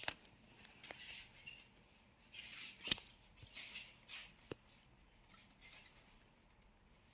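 Intermittent light rustling and scraping with a few sharp clicks, the sharpest about three seconds in: an object being handled by hand.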